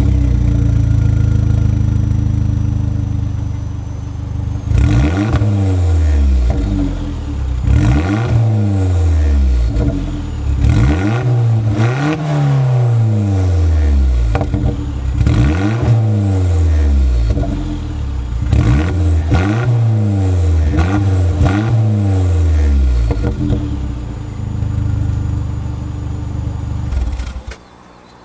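Vauxhall Corsa VXR's 1.6-litre turbocharged four-cylinder engine through a two-piece Remus aftermarket exhaust, heard at the tailpipe. It idles steadily, then is blipped in a long series of quick revs that rise and fall in pitch, settles back to idle, and cuts off suddenly near the end as the engine is switched off.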